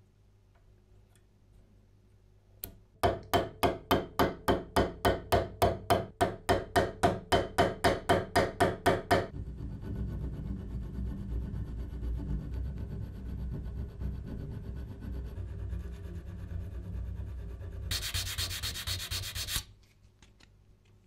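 Hand file on a riveted steel strip held in a vise: even back-and-forth strokes, about three and a half a second for some six seconds. Then a steadier sanding rub on the same metal, harsher and hissier for a second or so before it stops. The rivet heads are being taken down flush with the strip.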